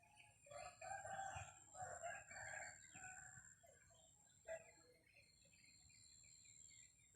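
A rooster crowing faintly, one drawn-out crow lasting about three seconds, with small birds chirping.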